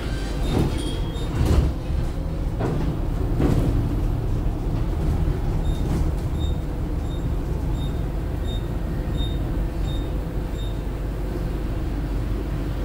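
Foxconn electric low-floor city bus heard from inside while running: a steady low rumble of motor and road noise, with a few knocks and rattles in the first few seconds. Through the middle a short high beep repeats about twice a second for several seconds.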